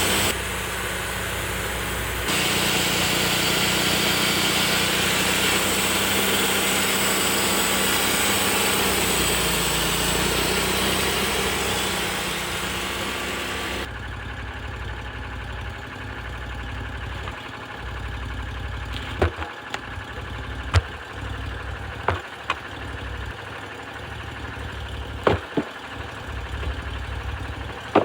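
TimberKing portable band sawmill's engine running with the blade cutting through a pine log, a loud, dense sawing noise. About halfway in the cutting noise stops suddenly and the engine keeps running more quietly, with a few sharp knocks near the end.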